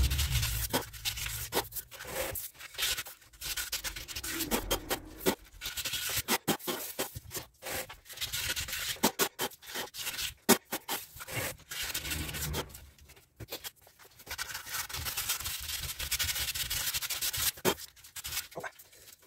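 Hands rubbing and scratching at masking tape on a tyre and alloy wheel rim, in short, irregular strokes with small clicks and crackles, pausing briefly a few times.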